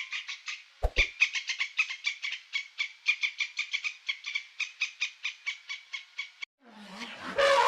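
An animal calling in a fast, even series of short chirping notes, about seven a second, which stops about six and a half seconds in; a different, louder and harsher call follows near the end.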